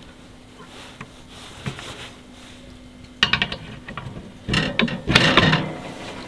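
Hard clattering and knocking as camp kitchen bench parts and legs are handled and fitted, in two bursts, the first about three seconds in and a longer one about a second later.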